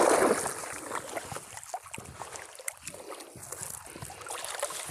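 Wet nylon gill net being paid out over the side of a small boat: a splash right at the start as the mesh goes into the water, then light dripping and rustling of the net.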